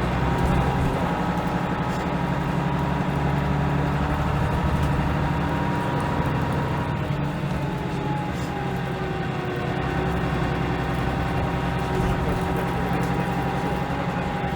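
Leyland National 2 bus's diesel engine running steadily under way, with a thin whine above the engine note that drops in pitch about halfway through.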